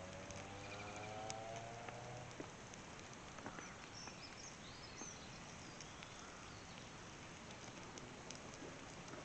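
Open wood fire crackling, with scattered small pops over a faint steady hiss, and faint birds chirping. A low hum with several stacked tones, its pitch rising slightly, fades out about two seconds in.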